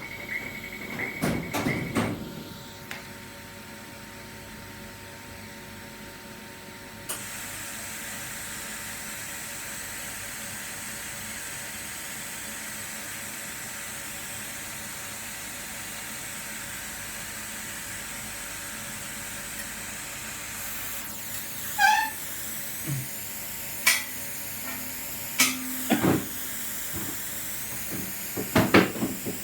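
Machinery of a YAG laser welding machine: a steady hum, then a steady hiss that comes on abruptly about seven seconds in. Scattered sharp clicks and knocks come toward the end.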